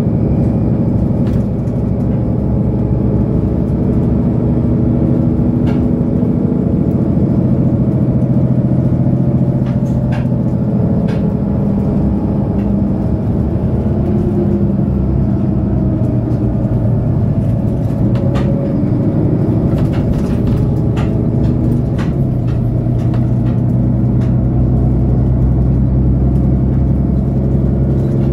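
Mercedes-Benz O530 Citaro bus's diesel engine idling steadily while the bus stands at a stop, heard from inside the bus, with a few faint clicks.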